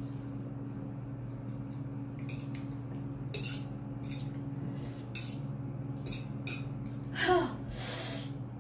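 Metal fork clinking and scraping on a ceramic plate with short slurps of spicy instant noodles, over a steady low hum. Near the end comes a brief vocal whimper falling in pitch, then a loud rush of breath, a reaction to the burning heat of the noodles.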